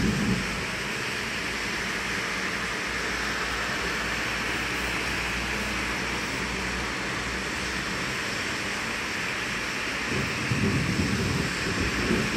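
Steady hiss of heavy rain, with a low rumble of thunder building about ten seconds in.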